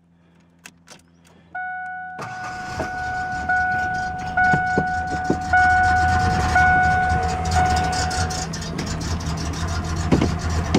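1993 Ford Ranger's 3.0-litre V6 starting about two seconds in and then running rough, shaking hard, on a truck with a leaking fuel line. The dashboard warning chime beeps about once a second over it and stops near the end.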